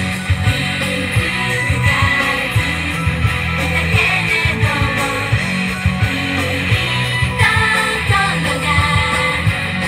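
Live J-pop idol group performance over PA speakers: several female voices sing into handheld microphones over pop-rock backing music with guitar and a steady drum beat.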